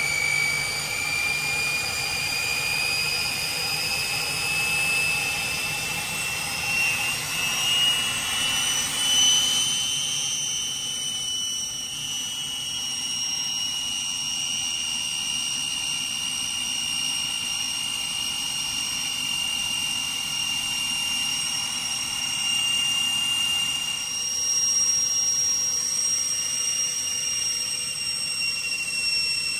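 Twin Turbomeca Marboré turbojets of a Morane-Saulnier MS.760 Paris, heard from inside the cockpit: a steady high whine over a rushing noise. The whine's pitch climbs over about the first ten seconds as the engines spool up, then holds steady.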